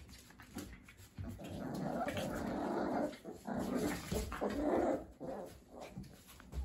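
Schapendoes puppies growling as they play-fight: one long growl starting a little over a second in, then several shorter growls.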